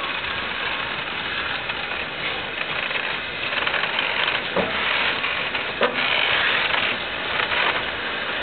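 LNER Peppercorn A1 Pacific steam locomotive No. 60163 Tornado hissing steam as it moves slowly in reverse, the hiss getting louder about three seconds in as the cab comes past. Two brief squeaks sound near the middle.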